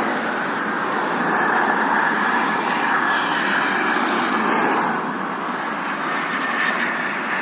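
Steady hiss and hum of road traffic: tyres and engines of vehicles passing on a toll road, easing slightly after about five seconds.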